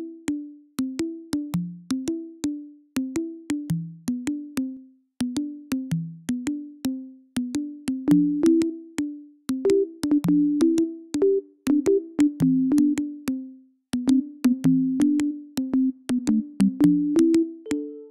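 Electronic music loop built in GarageBand: a steady pulse of short plucked synth notes from the 'Big Dripper' and '80s Sine Synth' patches, with sharp clicks on the beat. Higher keyboard notes join near the end.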